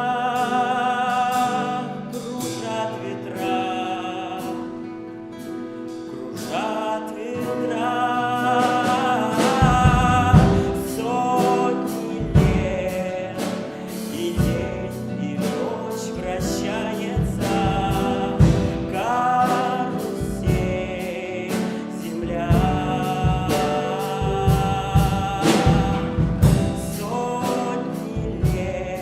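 Live pop song performance: a singer's voice with piano and guitar, with a drum kit and cymbals coming in about ten seconds in.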